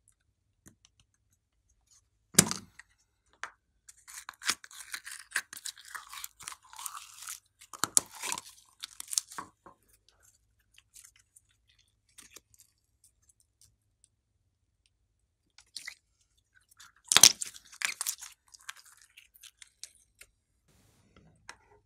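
Plastic cup of glitter slime clicking open, then the slime crackling and squishing as fingers pull it out and work it. A second sharp click with more crackling comes about three-quarters of the way in, with quiet gaps in between.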